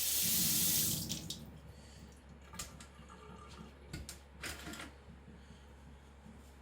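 Water splashing from a tap for about a second, rinsing the sharpened blade, then a few light knocks and rubbing sounds as the wet blade is handled.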